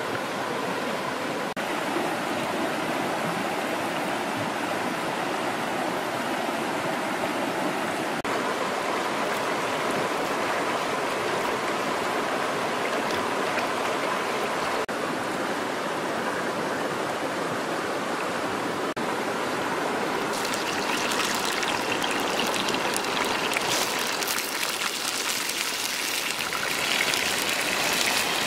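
A shallow stream running over rocks, a steady rushing and trickling of water. About two-thirds of the way in, a dense crackling sizzle takes over: wet worms frying in a hot pan over a wood fire.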